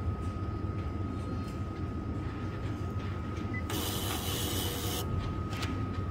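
A Bizerba self-service scale's label printer printing a price label: a brief steady whirring hiss of about a second, starting a little under four seconds in. Under it runs a steady low hum with a thin high tone.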